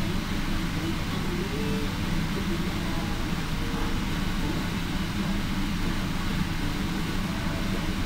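Indian Pacific passenger train's stainless-steel carriages rolling slowly past: a steady low rumble of wheels on rail, with no distinct clicks.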